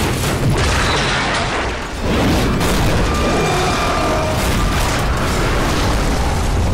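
Plane crash sound effect: a loud, continuous explosion-like rumble with crackle, dipping briefly about two seconds in and then carrying on.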